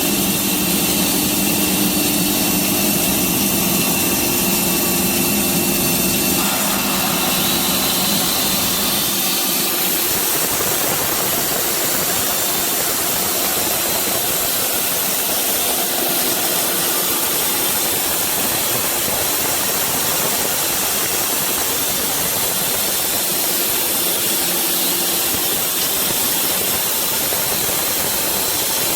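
Woodworking CNC saw machinery running steadily: a continuous machine hum with a hissing rush. The low hum drops away about six to nine seconds in, leaving an even rushing noise.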